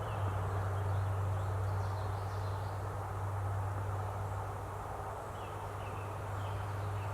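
Outdoor ambience: a steady low hum under a soft background hiss, with a few faint, short bird chirps scattered through it.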